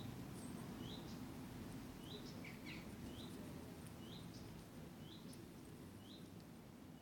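A small bird giving a short, high chirp about once a second, over a steady low rumble.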